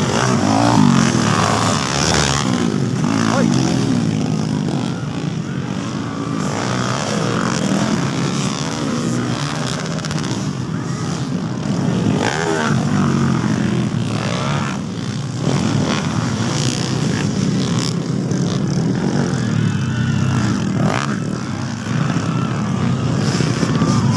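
Several motocross dirt bikes racing, their engines revving up and falling back again and again as they pass and take the jumps, over the chatter of a crowd.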